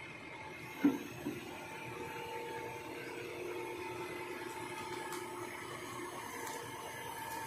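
Kobelco crawler excavator running under load as it crawls and levers itself up onto a lowbed trailer, a steady mechanical drone with a whine. A sharp clank about a second in, with a smaller one just after.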